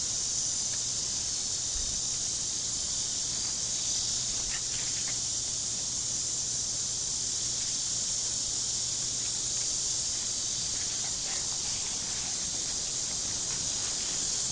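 Insects droning steadily: a continuous high-pitched buzz that does not change.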